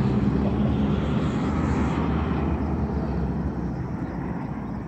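A passing car, its engine hum and tyre noise loudest at first and fading away.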